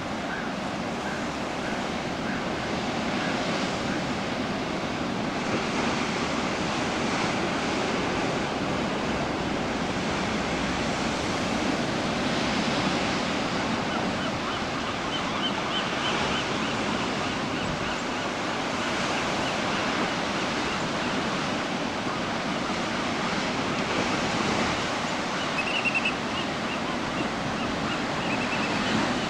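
Pacific surf breaking on rocks, a steady rushing wash of waves that swells and ebbs without a pause. Faint high, short chirps repeat in quick series near the start and through the second half.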